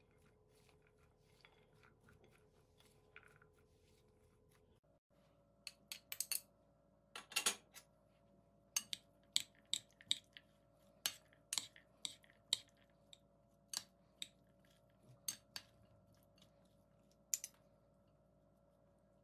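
Sharp clinks and taps of metal kitchen utensils against cookware, irregular, roughly one every half second to a second, starting about six seconds in and ending near the end.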